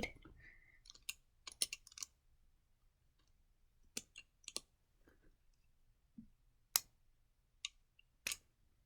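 Plastic Lego bricks clicking as pieces are picked out and handled: scattered short, sharp clicks, a cluster in the first two seconds and single ones spread through the rest.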